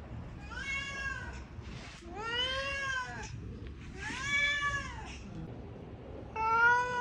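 Domestic cat meowing: four long meows about a second and a half apart, each rising and then falling in pitch.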